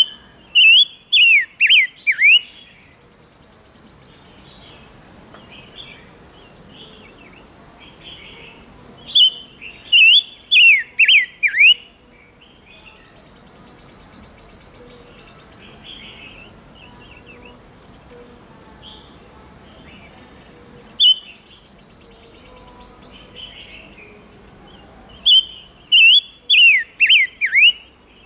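Chim ngũ sắc songbird singing in three loud phrases, each a quick run of five or six clear down-slurred whistled notes, with softer chirps in between and one lone note about two-thirds of the way through. It is used as a lure call for catching wild birds and for stirring caged males into song.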